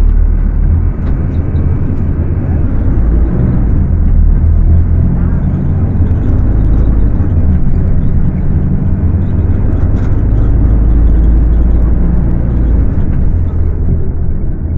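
Scania K250UB bus's rear-mounted diesel engine running at high revs as the bus drives, a loud steady low drone that shifts a little near the end.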